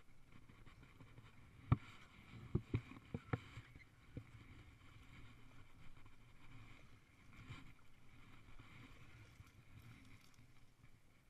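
About six sharp knocks on a small flat-bottomed boat's hull, the loudest one near two seconds in, as a pole is worked against it while the boat is poled through brush. Between and after them, a faint steady low rumble.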